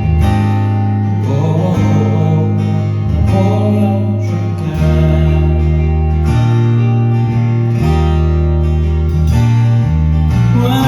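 Live rock band playing: strummed guitars over sustained chords and a bass line that moves every second or two, with a vocalist singing one short line about halfway through.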